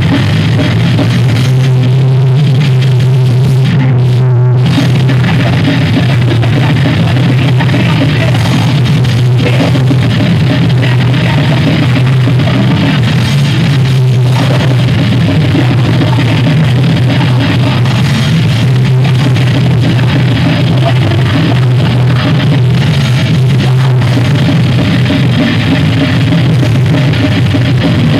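A thrash metal band playing live and loud: distorted electric guitar and bass guitar over a drum kit, without a break.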